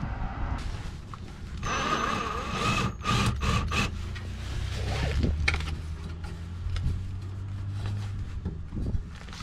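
Cordless drill/driver running in a few short bursts about two seconds in, driving screws to fix the muffler bracket to the van frame, amid clicks and knocks of metal parts being handled.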